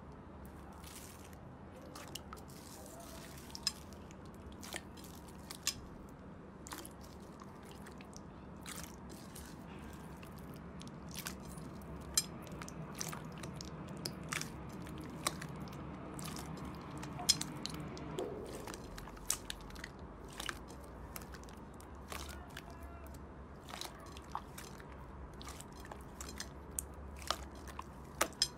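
Clear slime mixed with small foam beads being kneaded and squeezed by hand, giving irregular crunchy crackles and sharp pops, a few every second.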